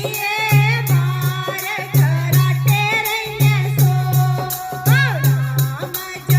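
Devotional kirtan music: singing over a low pulsing beat, with a shaken rattle keeping time in quick regular strokes. About five seconds in, the melody makes a wide swoop up and down.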